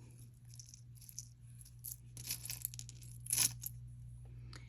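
Small pieces of costume jewelry clicking and rattling together as they are picked through and handled, in scattered faint taps with a louder clink about three and a half seconds in.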